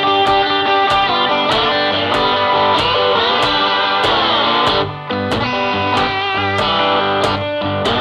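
Background music: electric guitar with bending notes over a steady beat, dropping out briefly about five seconds in.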